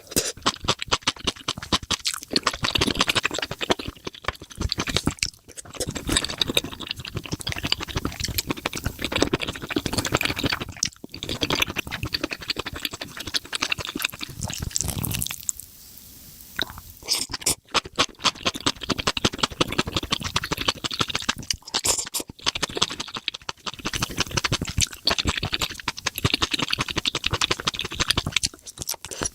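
Close-miked wet chewing of spicy mushrooms: a dense run of sticky clicks and squelches, broken by a few short pauses.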